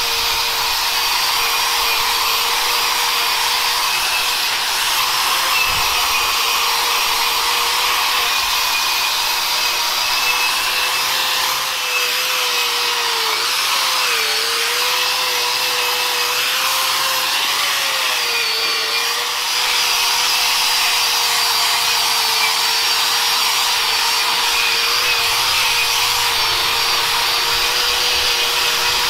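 Angle grinder with a wire wheel running steadily, scouring surface rust off a cast-iron engine frame: a constant motor whine under a dense scratching hiss. The motor's pitch dips briefly under heavier pressure about fourteen and eighteen seconds in.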